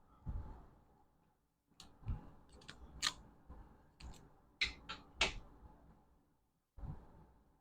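Hand tools working on motorcycle wiring: a quick string of sharp clicks and snips with a few dull knocks in between.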